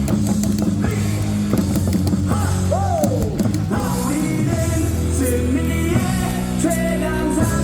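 Rock music with singing playing steadily over a baseball stadium's loudspeakers.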